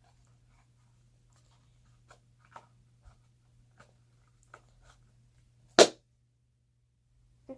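Small objects being handled and put away: a scatter of faint clicks and taps over a low steady hum, with one loud, sharp knock about six seconds in.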